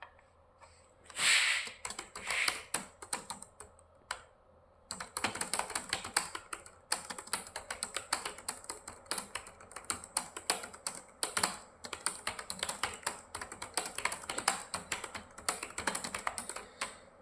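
Computer keyboard being typed on in a speed typing test: a few scattered keystrokes at first, then fast, continuous typing from about five seconds in.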